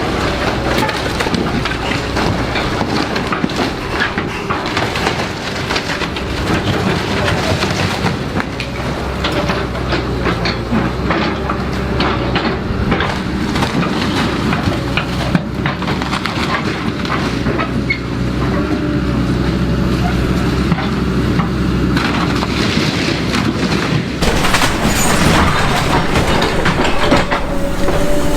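Heavy tracked construction machine working: its diesel engine runs steadily under continuous metallic clanking and knocking.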